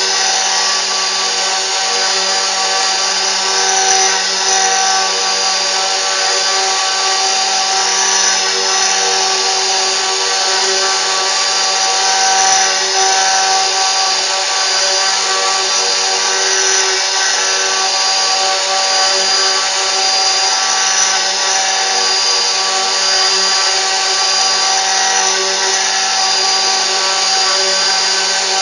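CNC router running steadily: a constant machine whine of several steady tones over an even noise, with no change in level.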